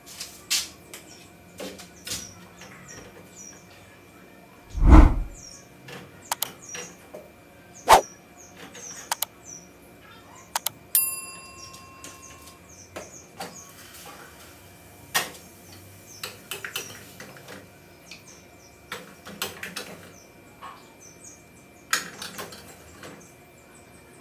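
Kitchen handling noises: scattered clicks and knocks of things being moved and set down, with one heavy thump about five seconds in and a short electronic beep about eleven seconds in. Faint bird chirps run underneath.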